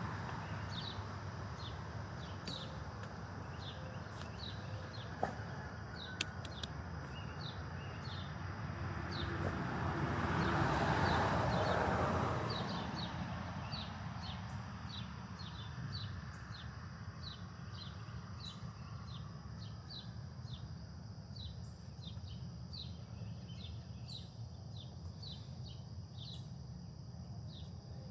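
A bird chirping short notes over and over, about once or twice a second, over a steady low outdoor rumble. A swell of rushing noise builds and fades in the middle.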